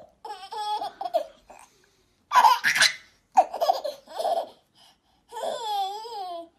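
A baby laughing in several separate bursts of high-pitched laughter, ending in one long, wavering laugh near the end.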